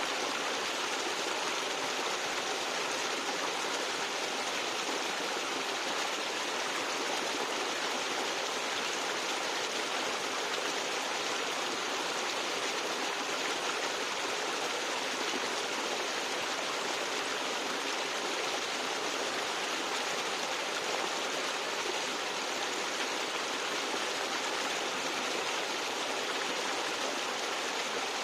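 Forest stream gurgling over rocks, a steady, unbroken rush of running water.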